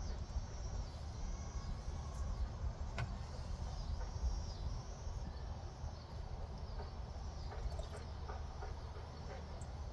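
Outdoor background: a steady low rumble with faint bird chirps and a single sharp click about three seconds in.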